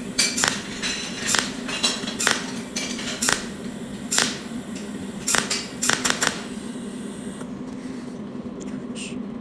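Cold welding machine firing pulses through its tungsten needle into wire gauze, melting it: sharp snapping cracks at irregular intervals, about a dozen in the first six seconds, then they stop. A steady low hum runs underneath.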